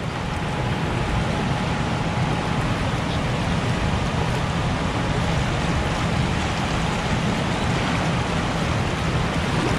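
Steady rush of turbulent water below a dam, a constant hiss with a low rumble underneath.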